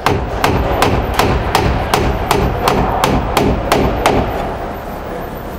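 Claw hammer driving a 2-inch nail through a wooden door frame into the wooden shims behind it. About a dozen quick, evenly spaced blows, nearly three a second, stopping about four seconds in.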